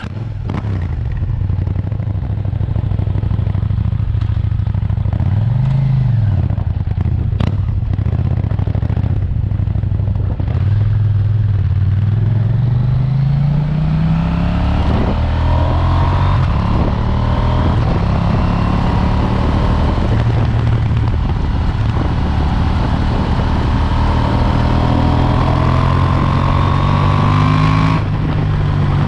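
KTM 790 Duke's parallel-twin engine with its stock exhaust: running low at first with a short rev about six seconds in, then pulling hard and rising in pitch through the gears, and dropping off near the end.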